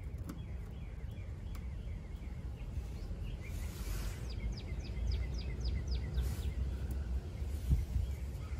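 Outdoor ambience of a low, unsteady rumble of wind on the microphone, with a songbird calling. About halfway through comes a quick run of about seven high, falling chirps.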